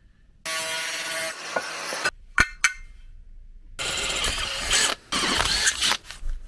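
Power drill boring holes through a metal bracket strip clamped in a bench vise, running in three separate spells, with two sharp clicks in the pause between the first and second.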